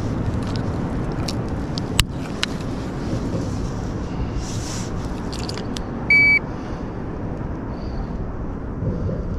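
Steady low rumble with scattered small clicks and knocks, and one short, high electronic beep about six seconds in, the loudest sound.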